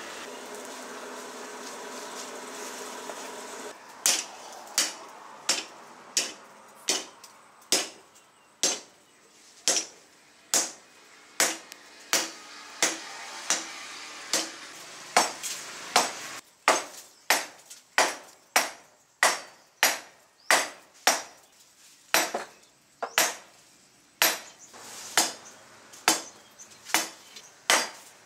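A steady whirring hum for about four seconds, then a hammer striking red-hot rebar on a round steel anvil post: single ringing blows, about one a second at first and quicker later on.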